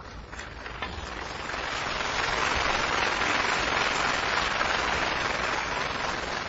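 A couple of snooker ball clicks as a shot is played, then audience applause that swells after about a second and begins to die away near the end.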